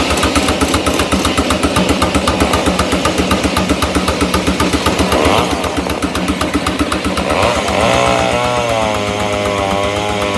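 Case portable steam engine running with a rapid, even exhaust beat as it drives a circular sawmill. About eight seconds in, a wavering whine from the saw blade comes in over it.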